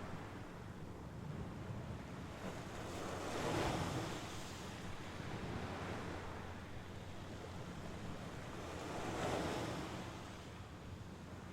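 Mediterranean Sea waves washing onto the shore, with two louder surges about three and a half seconds and nine seconds in and a steady wash between them.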